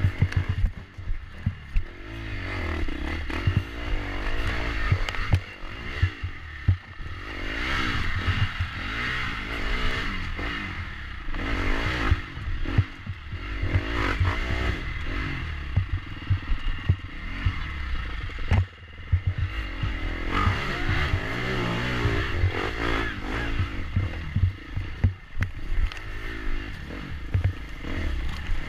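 Dirt bike engine revving up and down over and over as it is ridden hard over rough ground, with frequent sharp knocks and clatter from the bike jolting over rocks and roots. There is a heavy low rumble of buffeting on the onboard camera's microphone.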